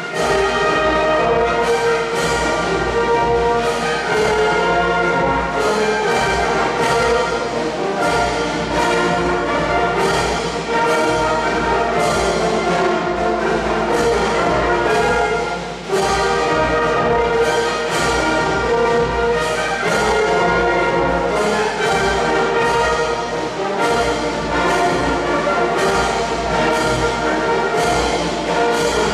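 Brass and drum band (batterie-fanfare) playing a concert piece: sustained brass chords over a regular beat. The volume drops briefly a little past halfway, then the full band comes straight back in.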